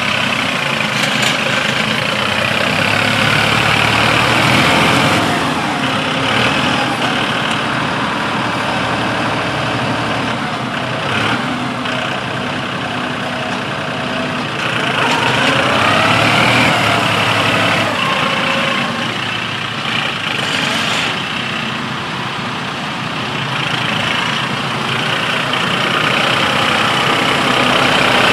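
Massey Ferguson 2607 tractor's diesel engine running steadily under load while its front loader pushes through soil and manure, the engine note rising and falling now and then.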